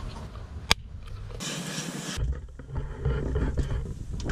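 Strong wind rumbling and buffeting on the microphone, with one sharp plastic click near the start as the berley container is handled.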